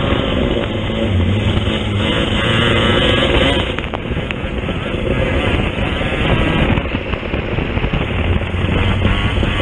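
Racing kart engine heard from onboard, running hard at high revs. About four seconds in the sound drops briefly and then builds again.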